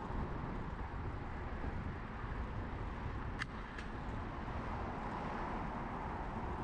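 Steady rumble of city traffic and wind noise heard while riding a bicycle, with two sharp clicks close together a little past halfway.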